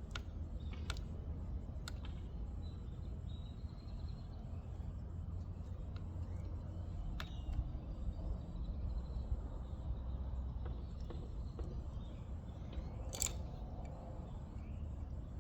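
A few sharp, isolated clicks and snaps from hands working wire connectors and crimp splices, over a steady low background rumble; the loudest click comes near the end.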